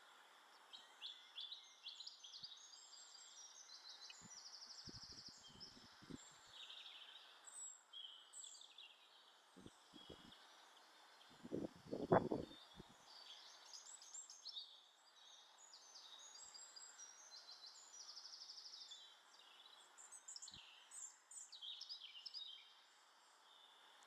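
Garden birds chirping and singing, with quick trills. About halfway through comes a louder cluster of knocks and wing flutter close to the microphone as a collared dove lands on the log feeder, with a few lighter knocks earlier from birds at the feeder.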